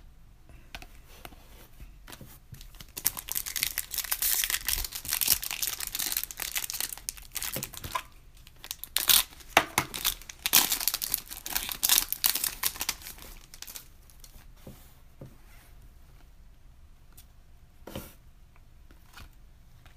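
Trading-card pack wrappers being torn open and crumpled, a dense crinkling for about ten seconds, then a few faint clicks as the cards are handled.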